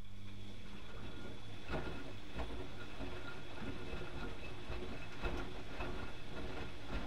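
Bauknecht WAK 6950 front-loading washing machine running, with a steady low motor hum and a few steady higher tones. Irregular knocks and rattles join in a little under two seconds in.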